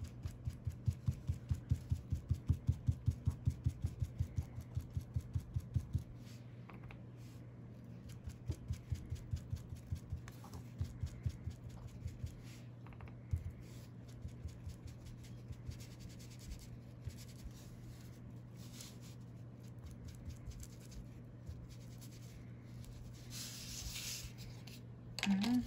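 Foam ink blending tool dabbed rapidly onto paper through a paper mask, soft muffled taps several a second in runs that thin out to occasional dabs. A short paper rustle near the end, as the mask is lifted away.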